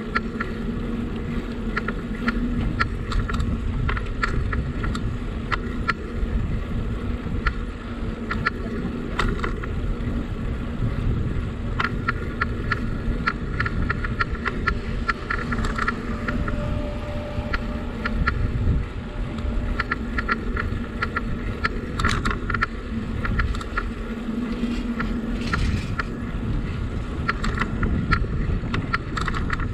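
Bicycle riding along: a steady low rumble of tyres and wind on the microphone, with frequent light clicks and rattles and a faint steady hum.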